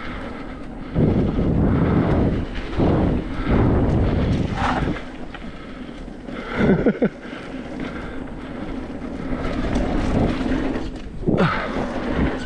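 Wind buffeting the microphone over the rumble of a mountain bike's tyres rolling fast down a dirt trail, in surges that rise and fall every second or two.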